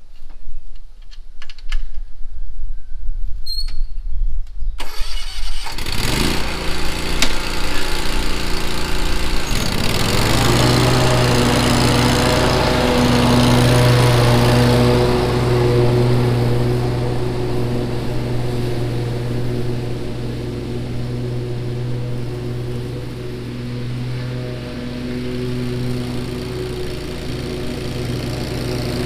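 Exmark Vantage stand-on mower with a newly fitted mulching kit: the engine runs low for about five seconds, then the blades engage and the engine climbs over several seconds to a steady full-speed run while cutting grass.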